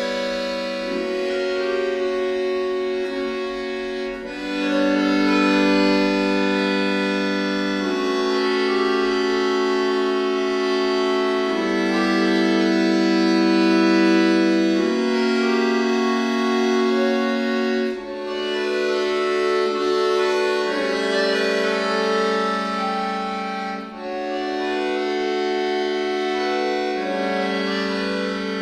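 Chromatic button accordion (bayan) played solo: long sustained chords, each held for about three or four seconds before moving to the next, with two brief breaks in the sound in the second half.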